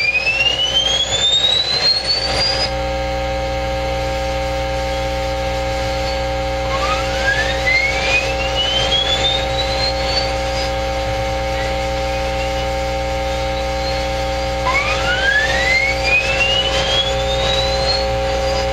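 HAARP transmissions received on a shortwave radio: steady humming tones with three rising pitch sweeps, each climbing for about three to four seconds, spaced several seconds apart. The first sweep is already under way at the start.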